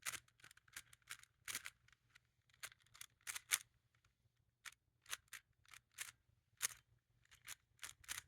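Rubik's cube being turned by hand: an irregular run of sharp plastic clicks, a few a second, as the layers are twisted.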